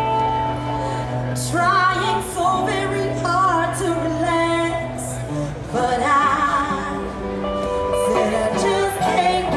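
A woman singing live into a handheld microphone, with vibrato on her held notes, over a musical accompaniment of long, steady bass notes.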